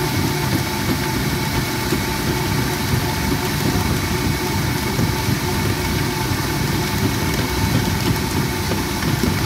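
Kenwood stand mixer motor running steadily at speed 5, with a constant whine over a churning low hum as its flat beater kneads a wet, 100%-hydration sourdough starter in a stainless steel bowl. The dough is at the stage where it starts to pull away from the bowl's sides as it gains strength.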